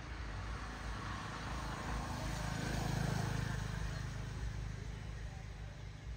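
A motor vehicle passing by: its engine grows louder to a peak about halfway through, then fades away.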